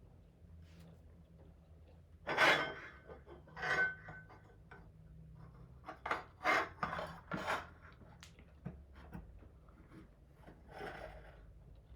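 Packaging being handled, rubbing and scraping in a series of short swishes: two louder ones about two and four seconds in, a cluster around six to seven and a half seconds, and a softer one near the end.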